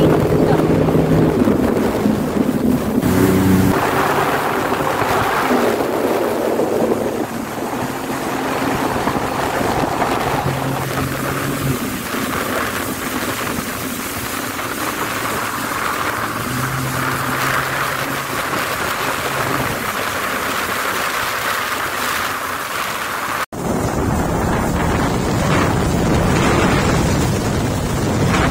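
Jet ski engine running under way, its pitch shifting as the throttle changes, over water rushing past the hull and wind buffeting the microphone. Near the end the sound cuts abruptly to wind and spray with no clear engine note.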